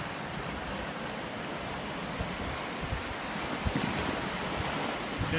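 Sea surf surging and foaming over stone steps and rocks at the foot of a sea wall, with wind rumbling on the microphone and a few brief low bumps.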